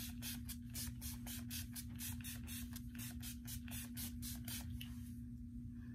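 NYX Matte Finish setting spray pump-mist bottle spritzed rapidly at the face: a quick run of short hissing sprays, about four or five a second, stopping about five seconds in.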